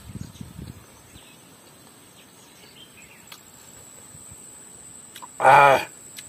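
Steady high insect drone, like crickets, with faint bird chirps; a few low handling thuds about the first second. Near the end a man gives one short, loud closed-mouth "mmm" hum.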